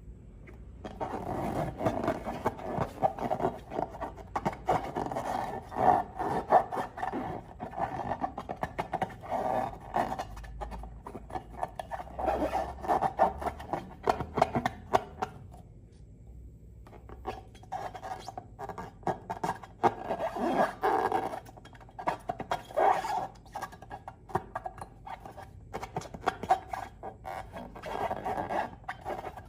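Slime being squished and kneaded by hand: dense wet clicks, crackles and squelches, stopping for about a second and a half midway before going on.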